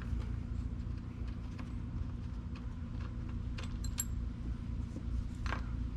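Small metal parts being handled: a few faint clicks and a brief light metallic jingle about two-thirds of the way through, over a steady low hum.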